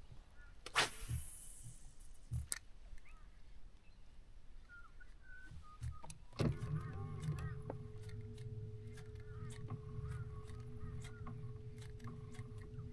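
Bow-mounted electric trolling motor on a bass boat humming steadily from about six seconds in: one held tone over a low drone. Before it, scattered small clicks and a brief hiss about a second in.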